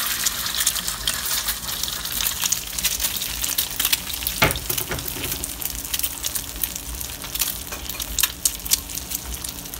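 An egg frying in a lot of very hot oil in a small cast-iron skillet: steady sizzling with dense crackling and popping, one louder pop about halfway through.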